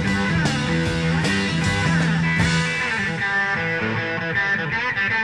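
Live rock band playing: a semi-hollow-body electric guitar plays a lead line over drums, with string bends near the end.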